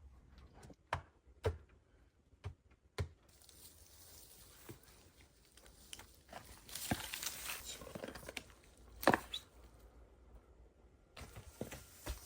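Four sharp knocks in the first three seconds, then a stretch of rustling, scraping noise with two louder knocks in it, which stops abruptly near the end.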